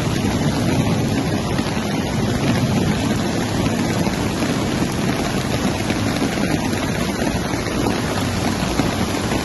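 Floodwater rushing along a street as cars drive through it, a loud, steady wash of water noise.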